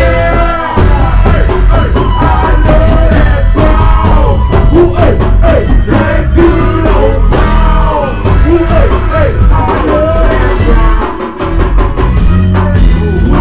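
Live band playing with a lead vocal over heavy bass and drums, loud. The bass and drums drop away for a moment near the end, then come back in.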